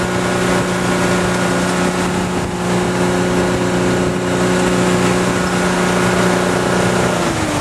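Towboat engine running steadily under load over a rushing noise. Its pitch falls near the end.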